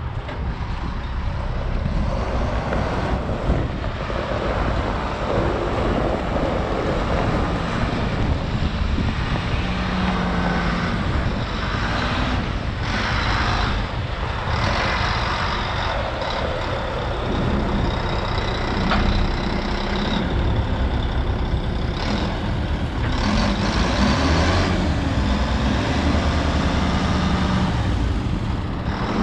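Volvo A40D articulated haul truck's diesel engine running steadily as the truck pulls up and then raises its dump body, a little louder in the last third.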